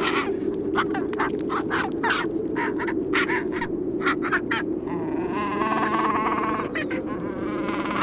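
Gentoo penguins calling: a quick run of short squawks, two or three a second, then from about five seconds in a longer, drawn-out braying call. A steady low background noise runs beneath.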